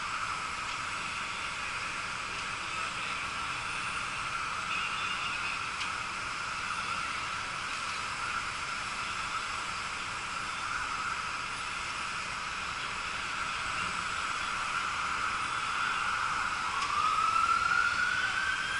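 Steady engine hum of fire apparatus running at a bus fire scene, then a siren rising in pitch over the last couple of seconds.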